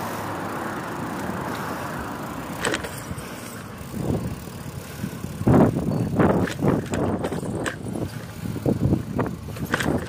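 Road traffic going past, a steady hiss of tyres and engines, then from about four seconds in a run of irregular knocks and scuffs close to the microphone.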